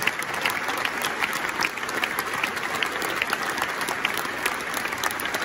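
Large crowd applauding, a dense, steady mass of clapping.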